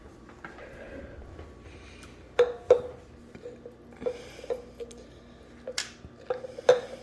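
Kitchen clatter: a series of light knocks and clinks of utensils and containers, some leaving a brief ring, with two louder knocks a little past two seconds in and another near the end.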